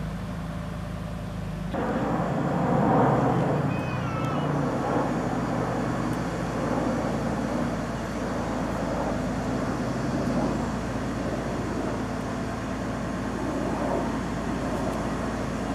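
Diesel engine of a mobile crane running steadily, with a low hum. It gets louder and rougher about two seconds in.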